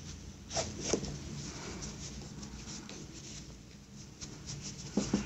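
Faint rubbing and rustling of hands working plush yarn with a crochet hook, drawing the yarn tail through a crocheted piece to hide it, with a pair of soft clicks about half a second in and another pair near the end.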